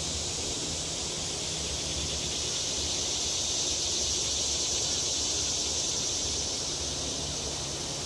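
A chorus of cicadas singing: a continuous high-pitched buzzing drone that swells slightly in the middle and eases off again.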